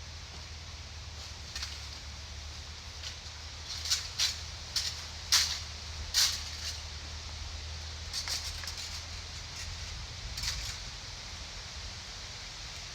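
Footsteps crunching and rustling through undergrowth, irregular and loudest in the middle, over a steady low hum that fades near the end.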